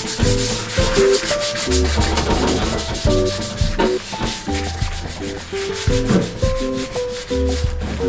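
Sponge in a rubber-gloved hand scrubbing a metal oven tray with rapid back-and-forth strokes, working off grime loosened by a citric acid soak. Soft background music with a bass line plays underneath.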